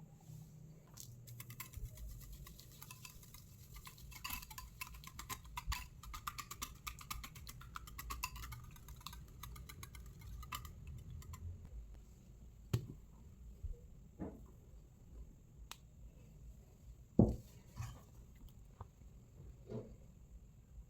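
A spoon or whisk clinking rapidly against a bowl for about ten seconds, as in mixing batter, then a few separate knocks of kitchen utensils and dishes, the loudest about seventeen seconds in.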